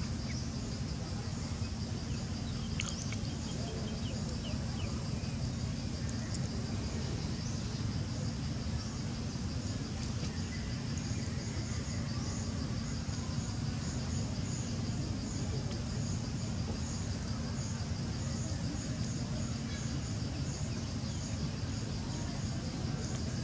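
Insects chirping in rapid, even pulses high in pitch, over a steady low hum, with a couple of faint clicks about three and six seconds in.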